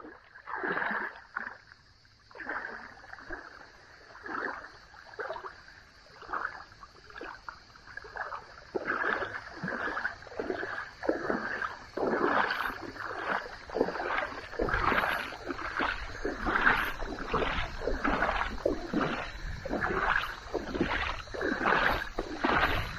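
Paddle strokes splashing in shallow water, a steady run of about three strokes every two seconds that grows louder about halfway through.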